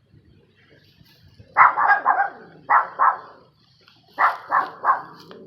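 An animal giving short, harsh, bark-like calls in quick groups of two to four.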